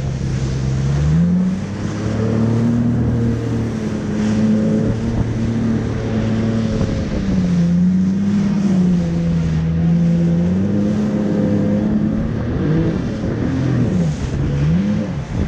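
Jet ski engine running under way, its pitch rising and falling with the throttle over the rush of water and spray. Near the end the revs swing quickly up and down several times.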